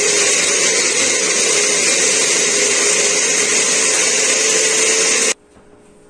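Glass-jar countertop blender motor running at a steady pitch, pureeing tomatoes, onion and garlic into a sauce, then switched off about five seconds in, stopping abruptly.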